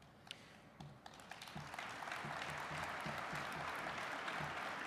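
Audience applauding: a few scattered claps at first, swelling into steady applause about two seconds in.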